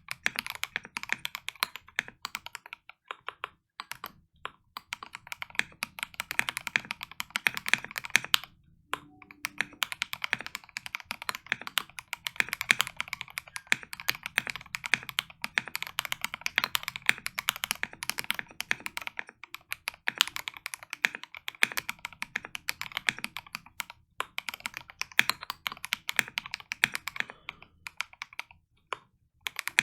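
Melgeek Mojo68 mechanical keyboard with lubed Gateron Pro Yellow linear switches being typed on quickly and continuously under ASA-profile keycaps, with a few brief pauses.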